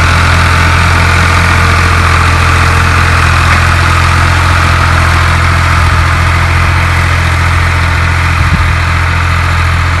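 Fiat 480 tractor's diesel engine running steadily and loud at close range as it pulls a tillage implement through the field.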